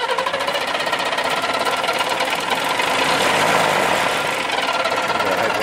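Mercedes-Benz Unimog diesel engine running steadily with a rapid diesel clatter, moments after catching on a cold start.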